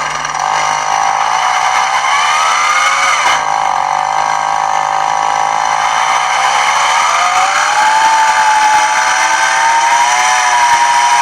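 Two-stroke engine from a Ural chainsaw running on a homemade mini moped, revving up and down. Its pitch climbs over the first few seconds and falls away sharply about three and a half seconds in, then rises again about seven seconds in and holds high to the end.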